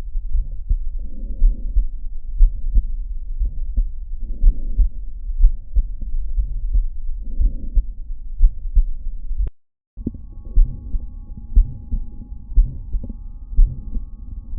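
Heart sounds recorded through a stethoscope: muffled, repeating beats with a murmur between them. About nine and a half seconds in they cut off for half a second and another heart recording starts, with a faint steady hum over it.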